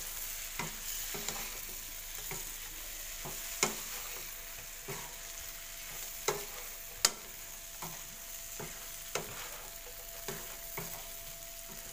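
Shrimp stir-frying with garlic and chilli in a nonstick frying pan: a steady sizzle, with the spatula scraping and tapping against the pan about once a second. The sharpest tap comes about seven seconds in.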